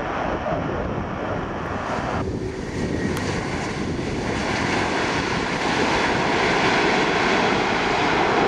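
The Rolls-Royce Trent 500 jet engines of an Airbus A340-500 on its landing roll make a steady rush of engine and air noise, with wind on the microphone. It swells louder and fuller about halfway in as reverse thrust builds.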